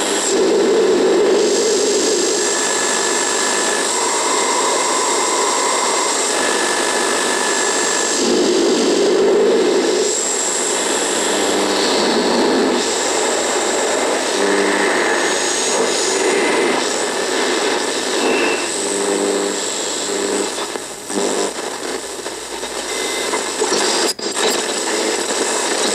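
Radio buzzing and hissing with static, with short whistling tones and warbles coming and going. Near the end the level flutters and dips for a few seconds.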